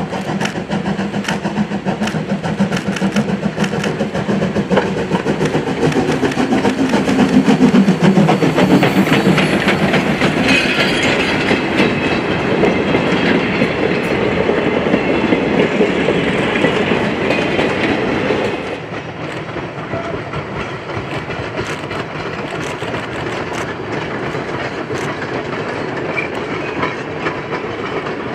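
Steam locomotive hauling a freight train past at close range, loudest about eight seconds in, followed by freight cars rolling by with their wheels clicking over the rail joints. About eighteen seconds in the sound drops suddenly to a quieter, more distant train rolling and clicking along.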